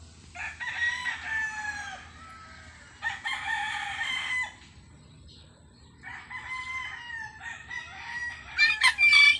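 Gamecock roosters crowing: three long crows one after another, then louder, choppier calls near the end.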